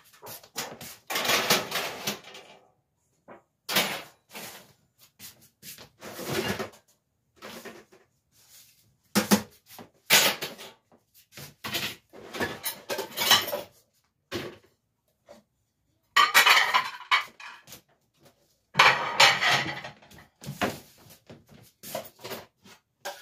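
Dishes and silverware clattering and clinking as they are handled, in irregular bursts separated by short pauses.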